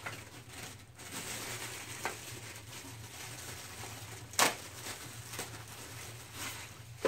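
Rustling and handling of desk-kit packaging and parts while a metal tube is taken out, with a light click and then one sharp knock about four and a half seconds in.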